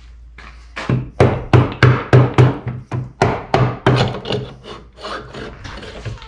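Rubber mallet striking a 1984 Chevy truck's transfer case in a quick run of loud, dull blows, about three a second, knocking the rear output housing loose from the case, with lighter knocks near the end.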